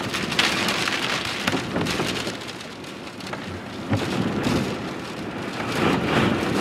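Heavy wind-driven rain pelting the vehicle's windshield and roof from inside the cabin, with many sharp taps and gusts that ease about halfway through and build again near the end, as a tornado passes close by.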